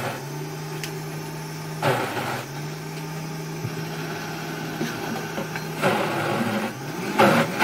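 High-powered countertop blender running on a thick tofu mixture while the tamper is pushed down through the lid. The motor hums at a steady pitch, with brief changes in its sound about two seconds in and again near six seconds as the load shifts.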